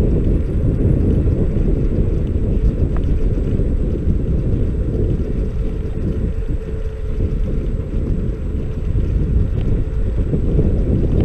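Steady wind buffeting the microphone, with road rumble from a Xiaomi Mi Scooter Pro 2 riding over rough asphalt.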